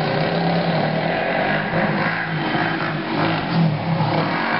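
ATV engine running and revving, its pitch rising and falling as the throttle is worked.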